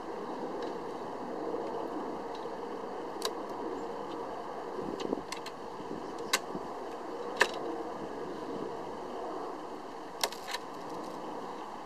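Mechanical self-timer of a Voigtländer Bessa's Compur leaf shutter running down with a steady whirr for about ten seconds, with a few sharp clicks along the way. It ends in a pair of clicks as the shutter fires.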